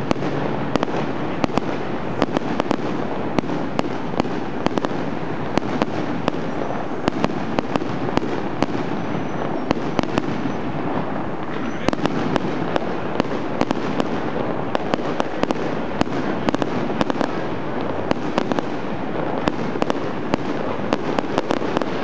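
Aerial fireworks bursting in quick succession: a dense, continuous crackle with many sharp bangs, several a second.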